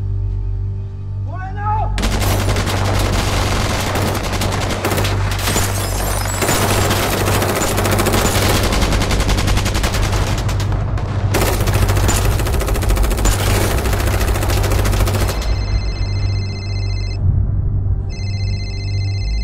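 Sustained automatic gunfire: long bursts of rapid shots lasting about thirteen seconds, with a brief pause partway through, over a low music drone. The shooting stops a few seconds before the end, and a pulsing high music tone follows.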